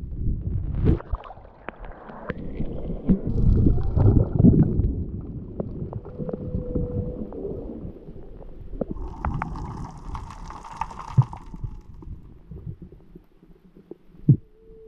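Muffled underwater sound picked up through an action camera's waterproof housing: low rumbling and gurgling water noise with many scattered sharp clicks and knocks, heaviest a few seconds in. A short hiss comes around ten seconds in.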